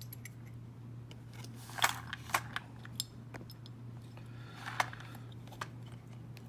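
A few sharp, small metal clicks and taps from handling the opened Federal padlock and its pin stacks while it is being taken apart, over a steady low hum.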